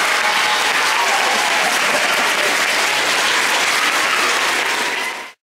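Audience applauding, a dense, steady clatter of many hands that cuts off abruptly near the end.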